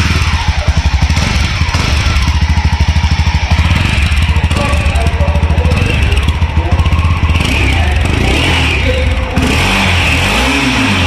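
Mahindra Mojo BS6's 298cc single-cylinder engine running, its exhaust note loud and steady with a slight change near the end.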